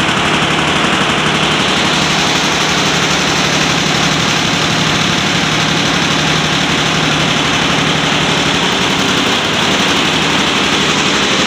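24-head Barudan embroidery machine stitching denim back-pocket panels: a loud, steady, rapid mechanical clatter from many needle heads running together.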